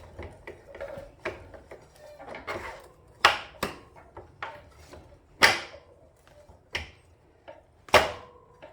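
Greased steel front axle being slid and tapped back through a motorcycle's front wheel hub and fork: small scraping clicks with a handful of sharp metallic knocks, the loudest a little past the middle and near the end.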